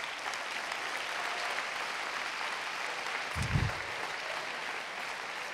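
Theatre audience applauding steadily after a punchline, with a single low thump a little past the middle.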